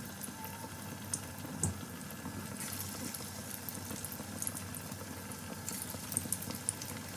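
Chana dal pakoras just dropped into medium-hot oil, sizzling in a steady hiss with scattered small pops and crackles.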